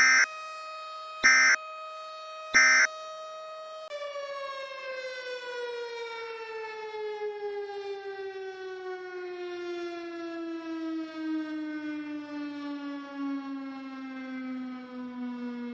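Three short bursts of EAS end-of-message data tones, about a second apart, over an outdoor tornado warning siren holding a steady pitch. About four seconds in the siren shuts off and winds down, its pitch falling slowly throughout.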